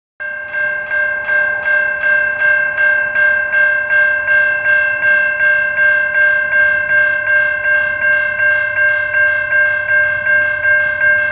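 Railroad grade-crossing warning bell ringing in a steady, even rhythm of about two strikes a second, each strike a ringing chord of several clear tones. The crossing is activated for an approaching freight train.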